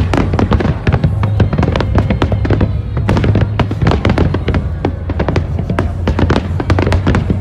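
Aerial fireworks shells bursting in rapid, overlapping succession: a dense, continuous run of bangs and crackles over a deep rumble.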